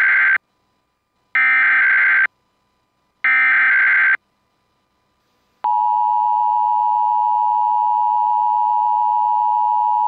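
Emergency Alert System SAME header: the end of one burst of screeching digital data, then two more bursts, each just under a second long and about a second apart. After a short pause a loud, steady EAS attention tone begins, signalling the start of a required monthly test alert.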